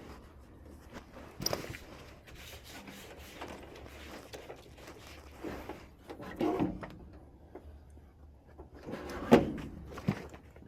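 A few scattered knocks and clicks of tools and metal parts being handled while a furnace's flame sensor is taken out, the sharpest knock about nine seconds in.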